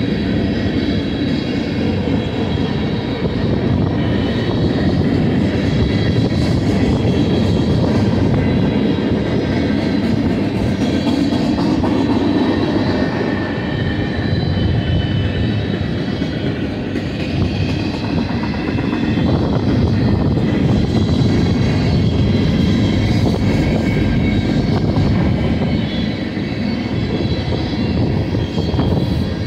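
Freight train cars (tank cars, covered hoppers and boxcars) rolling past: a steady rumble of steel wheels on rail, with faint high ringing tones over it.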